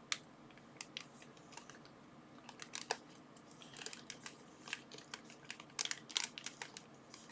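Plastic packaging bags being handled and opened: faint, scattered crinkles and light clicks.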